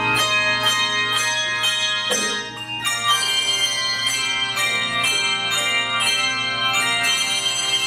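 Handbell choir playing: a quick run of struck bell notes over sustained ringing chords. It softens briefly a little over two seconds in, then comes back with a fuller chord.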